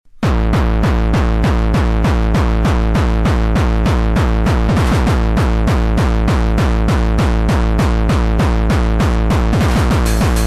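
Fast electronic dance music: a heavy, steady drum-machine kick beat with synthesizer, starting abruptly just after the start.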